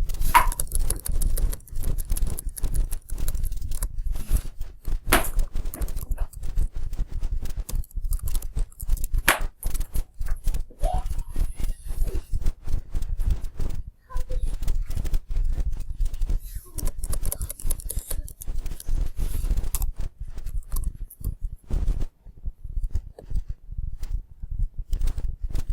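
Rapid, irregular clicking and tapping close to the microphone, with low thumps throughout and a few sharper, louder clicks standing out.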